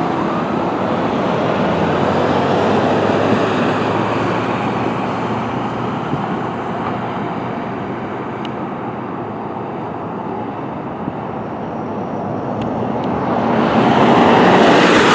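Road traffic noise from passing cars, a steady rush of tyres and engines that swells louder near the end as a vehicle passes close.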